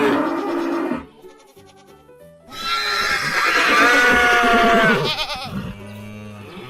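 Farm-animal call sound effects over light backing music: the tail of one call in the first second, then about 1.5 s later one long call of about two and a half seconds.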